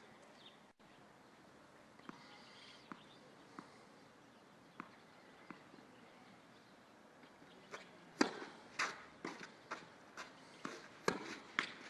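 Sharp knocks of tennis balls, racket hits and bounces on the court: a few faint ones about a second apart, then a quicker run of louder ones, about two a second, in the last four seconds.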